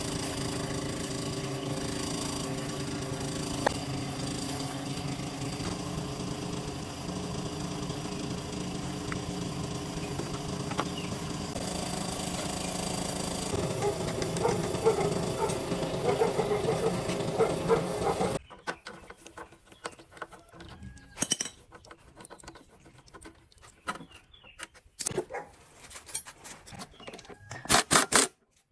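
A machine running steadily, then cutting off abruptly about eighteen seconds in, followed by scattered clicks and knocks from handling parts.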